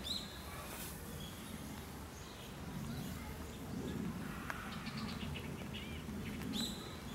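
Small birds chirping: a few short rising chirps and a quick run of high ticks in the middle, over a steady low background murmur.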